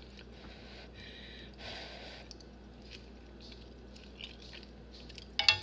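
Soft, wet eating sounds: a person chewing and taking a mouthful of noodles from chopsticks, with a few faint clicks. A short, louder sound comes near the end.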